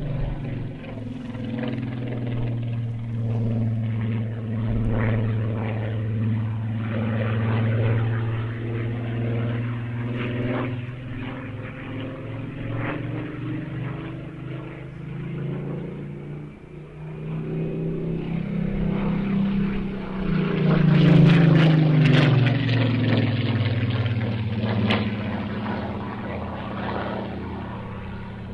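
Piston-engined propeller warbirds flying past, a steady engine drone that swells to its loudest about two-thirds of the way through and then drops in pitch as the aircraft passes.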